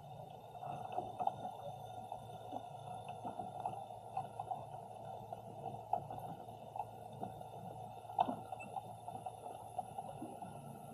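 Underwater ambience through a submerged Insta360 X3 camera resting on the sea floor: a steady muffled hum with scattered small clicks and crackles, one sharper click about eight seconds in.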